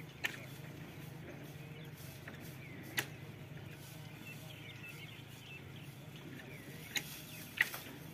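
A steady low hum, like an engine running nearby, with four sharp knocks at uneven intervals, the loudest near the end. Faint high chirps come through in the middle.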